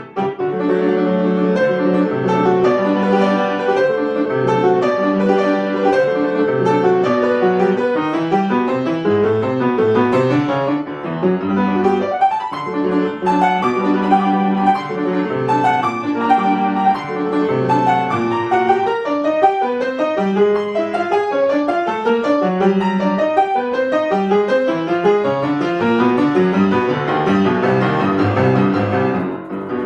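Solo piano playing a classical piece, with dense runs of notes over a moving bass line and a short break near the end.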